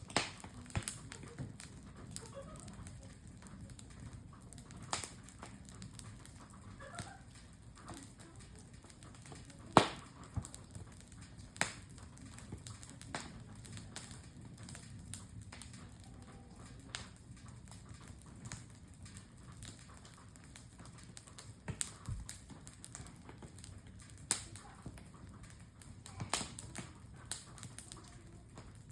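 Wood campfire crackling, with scattered irregular pops and snaps and one sharper pop about ten seconds in.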